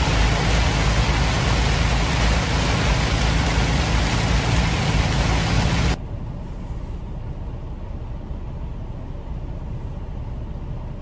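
Heavy rain and road noise inside a moving semi-truck cab, a loud, even hiss over a low rumble. About six seconds in it cuts off abruptly to a much quieter, steady low hum of the parked cab.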